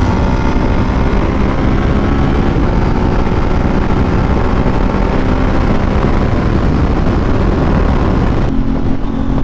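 Motorcycle engine running steadily at highway cruising speed, around 140 km/h, with heavy wind rush over the microphone. Near the end the sound changes abruptly to a duller, steadier engine hum.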